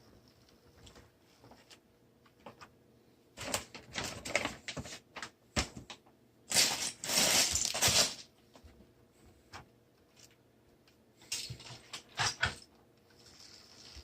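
Plastic Lego parts clattering and clicking as they are handled, in three bursts. The longest and loudest burst is about seven seconds in.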